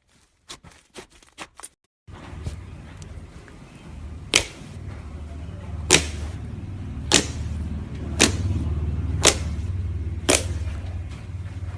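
Slime being played with: small quick crackles for the first two seconds, then six sharp snapping pops about a second apart over a low steady hum.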